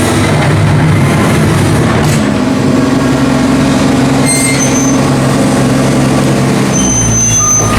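Diesel tractor engine working on a maize silage clamp while levelling and rolling it, its engine note shifting in pitch a couple of times as the load changes. A reversing beeper starts up near the end.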